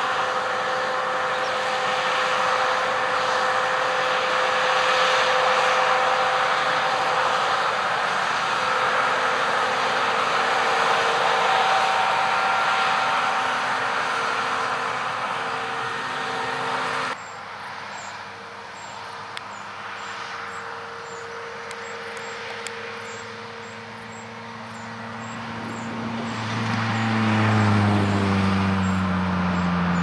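John Deere combine harvester running while it threshes and unloads, a steady rush with several whining tones over it. After a cut about halfway through the sound is quieter, then a combine's engine grows loud as it passes close near the end, its note dropping in pitch.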